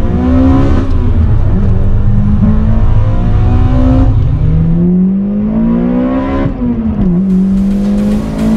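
Toyota Corolla Sportivo's 1.8-litre 2ZZ-GE four-cylinder with VVTL-i and a muffler delete, heard from inside the cabin, revving hard under acceleration. The engine note climbs in pitch, drops back at each gear change and climbs again, several times.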